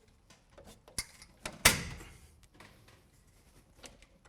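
Steel ceiling batten being pushed and snapped into acoustic clips: a few sharp clicking knocks about a second in, the loudest just after, which rings on briefly.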